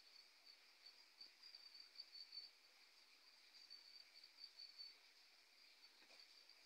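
Near silence, with faint, steady, high-pitched chirring of insects.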